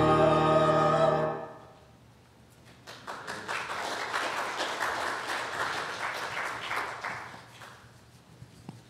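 Small choir and keyboard holding a final chord that is cut off a little over a second in. After a short pause, the congregation applauds for about four seconds, fading out near the end.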